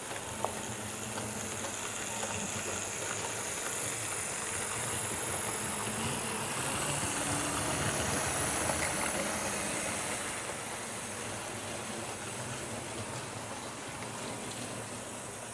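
HO scale model train, a DB class 78 4-6-4T tank locomotive hauling coaches, running along the track: a steady rolling and motor noise with a high hiss, growing louder as the train passes close about eight seconds in, then easing off.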